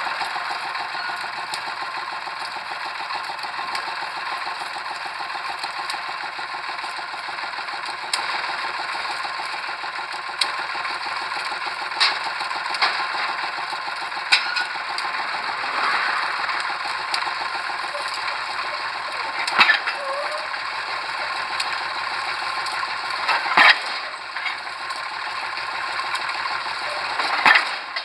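Pile-driving rig machinery running steadily with a fast, even rattle. Sharp metallic knocks come now and then, about seven of them, irregularly spaced.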